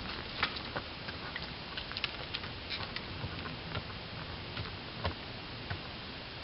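Horse's hooves stepping slowly on a hard raised slab, a few scattered light clicks and taps over a steady outdoor hiss.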